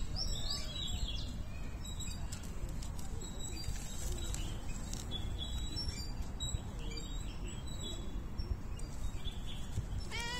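Small birds chirping off and on over a steady low background rumble. Right at the end a cat starts to meow.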